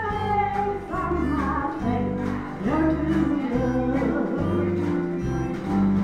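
Live country gospel performance: a woman singing an old gospel song into a microphone, backed by strummed and picked electric guitars with steady bass notes underneath.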